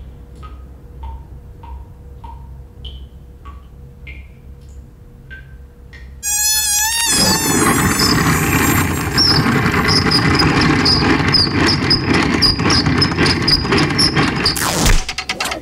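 Cartoon mosquito's thin whine and short high chirps, then a toilet paper roll spinning and unreeling fast with a loud rushing whir for about eight seconds. The whir stops with a sharp snap as the paper runs out, followed by a rapid flutter of the empty roll.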